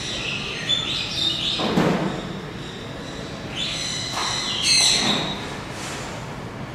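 High-pitched squealing bird calls in two bouts, about a second in and again around four to five seconds in, each with a dull thump.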